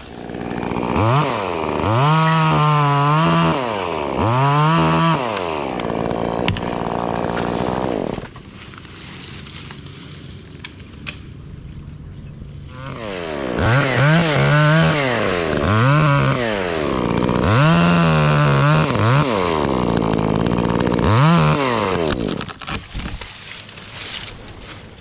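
Chainsaw revved up and down repeatedly in two spells, with a quieter lull of about four seconds between them, about eight seconds in.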